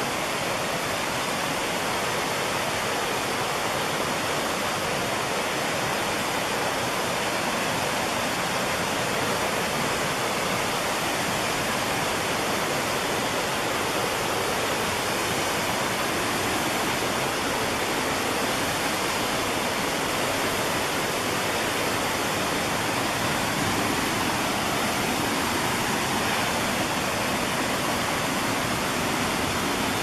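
Small waterfall pouring into a pool below: a steady, even rush of falling water with no break.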